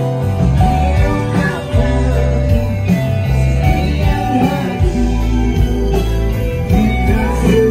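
Rock band playing, with guitar, heavy bass and a singing voice, as heard at a band's soundcheck.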